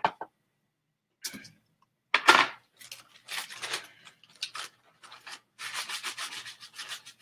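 Hands rubbing and rustling a soft grey item in a series of short scraping strokes. The loudest stroke comes about two seconds in, and the strokes come quicker in the last couple of seconds.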